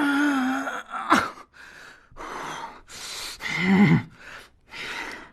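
A person's non-speech vocal sounds: a held pitched cry at first, then a string of short, loud breath-like bursts about every half second, with a brief cry rising and falling in pitch near the middle.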